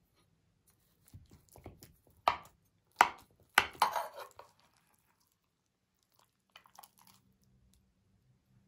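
Knife chopping on a cutting board: a few sharp, irregular strikes clustered a couple of seconds in, with fainter taps before them and a few light clicks near the end.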